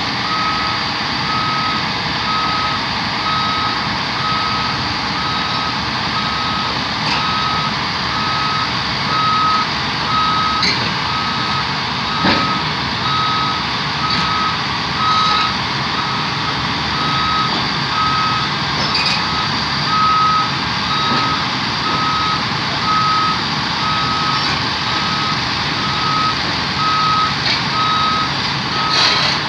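DCM 30 drilling rig's travel alarm beeping steadily about once a second over the even running of its engine as the rig moves, with a few faint knocks.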